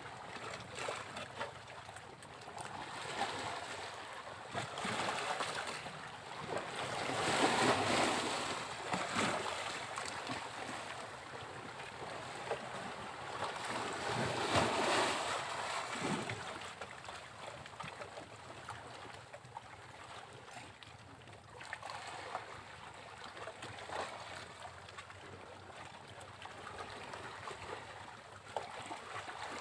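Sea waves breaking on a beach: a continuous wash of surf, with two bigger waves crashing about a quarter and half of the way through and smaller ones rolling in between.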